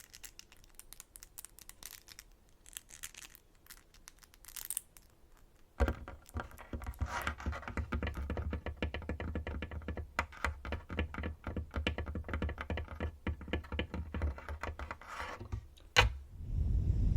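Fingernails tapping in light, quick clicks, then from about six seconds in, rapid, dense fingernail tapping on a tabletop with a low knock under each tap. Right at the end, breath blown onto the microphone.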